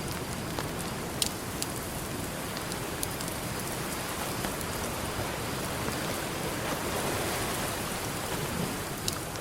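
Campfire crackling, with a few sharp pops, over the steady wash of ocean waves that swells gently about seven seconds in.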